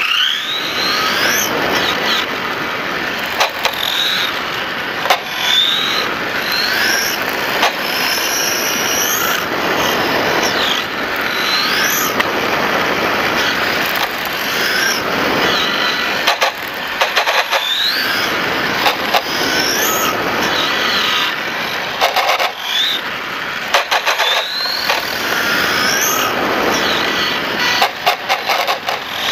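Onboard sound of a 1/5-scale RC motorcycle lapping a track. Its motor climbs in pitch again and again as it accelerates, then drops off, over steady wind and road noise, with occasional clicks.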